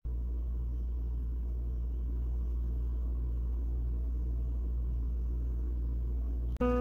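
Steady low hum and rumble at a constant level, with no other sound. Near the end it breaks off briefly and piano music begins.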